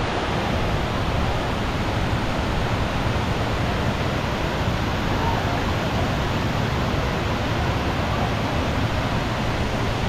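Steady, even rushing of water from the cascades of Kuang Si Falls.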